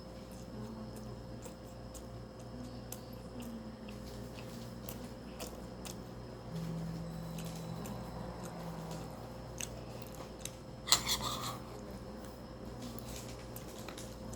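A person eating kimchi fried rice close to the microphone: soft chewing and small clicks, with a brief louder clatter about eleven seconds in, over a faint steady hum.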